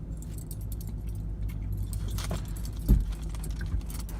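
Metal toy handcuffs and their key clinking and jangling in the hands, with one louder thump about three seconds in, over a steady low rumble of a car interior.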